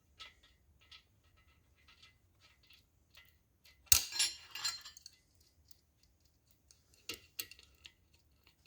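Small metal tools and parts clinking and clicking while being handled, with one loud sharp metallic clink that rings briefly about four seconds in and two more sharp clicks near the end.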